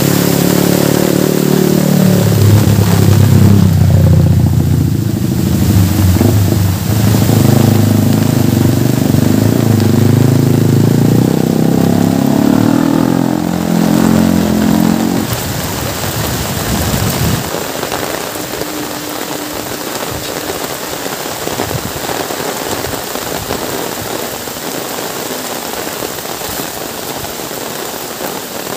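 A motor vehicle engine runs close by, its pitch shifting, for about the first fifteen seconds and then fades out. After that, steady heavy rain falls on the road and plants.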